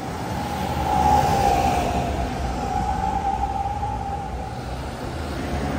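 Road traffic rumbling, with one long, slightly wavering high tone over it for about four seconds.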